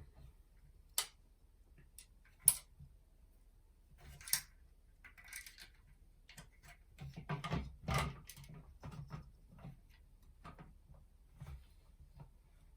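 Hard plastic model-kit parts being handled and pushed together: scattered clicks and knocks, two sharp clicks in the first few seconds, then a busier stretch of rattling and scraping around the middle.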